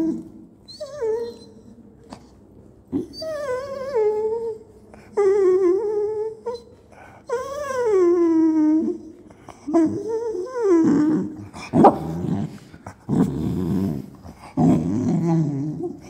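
A dog whining in about four long, wavering cries, then lower grumbling growls for the last few seconds.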